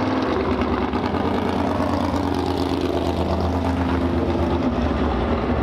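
Winged sprint car's engine running as the car rolls slowly past on the track.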